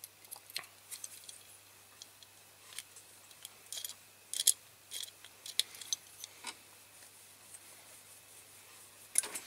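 Pliers gripping and working a steering wheel out of a die-cast metal toy tractor: scattered light metallic clicks and scrapes at irregular intervals, with a cluster of louder clicks near the end as the part comes free.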